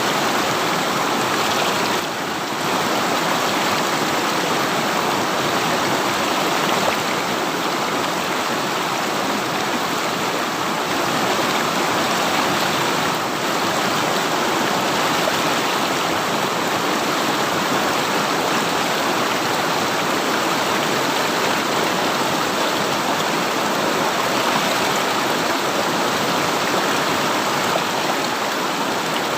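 River water rushing over stones, a steady, dense rush without a break.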